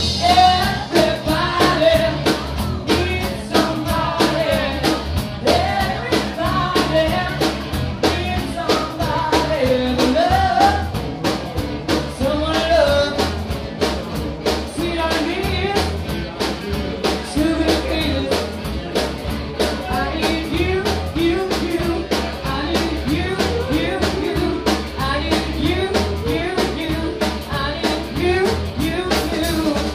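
Live blues-rock band playing: a woman singing lead over guitar and a drum kit.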